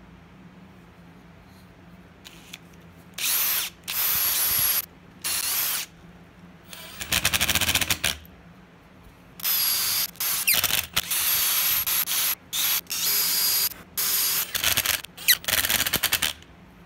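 Cordless drill/driver running in short bursts, each lasting up to about a second and a half and starting and stopping abruptly, as it drills and drives small screws into a plywood ring. The burst about seven seconds in carries a rapid clatter.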